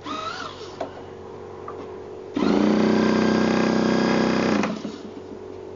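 Hand-held electric starter spinning an Irvine 36 two-stroke glow engine on an RC plane, running steadily for about two seconds from about two seconds in, then stopping. The engine does not catch; the owner suspects it needs a new glow plug.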